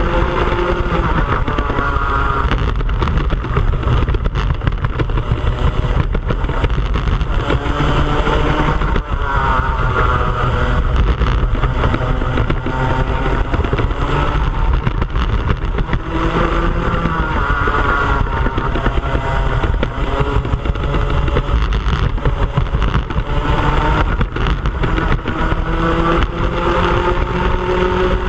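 Onboard sound of a Club100 racing kart's two-stroke engine at race speed, its pitch rising and falling again and again as it accelerates out of corners and drops back for braking, with a long rise near the end.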